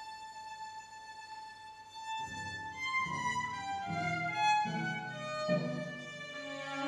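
Chamber orchestra strings playing: a single high violin note is held quietly, then about two seconds in lower strings enter with repeated accented chords while the upper parts move above them.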